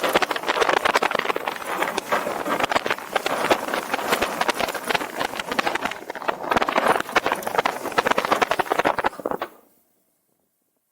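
Roller coaster train running along its track: a loud, dense clatter and rattle of wheels with rushing air, which cuts off suddenly about nine and a half seconds in.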